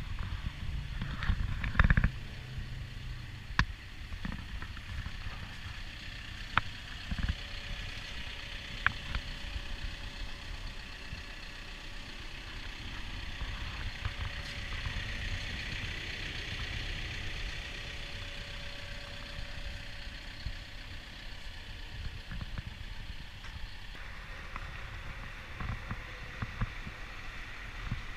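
Cat 430F backhoe loader's diesel engine idling steadily, with a few sharp clicks and knocks, the loudest about two seconds in.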